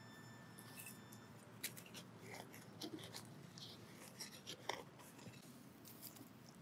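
Faint scraping, rustling and small clicks of hand-digging in grassy soil, as a target is worked out of a small hole. A faint steady high tone stops about a second in.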